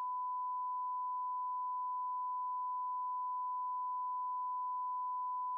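Steady single-pitch line-up test tone that accompanies colour bars, held at one level and cutting off suddenly at the end.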